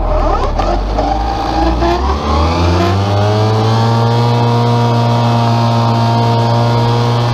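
Tractor-driven Claas disc mower spinning up: the drive and engine rise in pitch over about three seconds as the discs come up to speed, then run at a steady working pitch.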